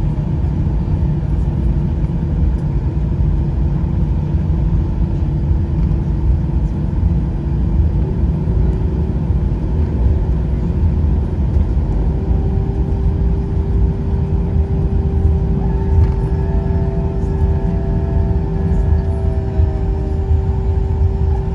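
Airbus A320 cabin noise while taxiing: a steady low rumble from the engines and the wheels rolling on the taxiway, with a steady hum. From about halfway through, a few higher steady tones join in, one of them dipping in pitch briefly.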